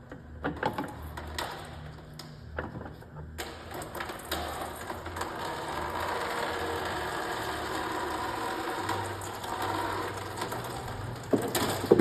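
A few sharp clicks and knocks, then a steady mechanical whirr for about seven seconds, with more knocks near the end.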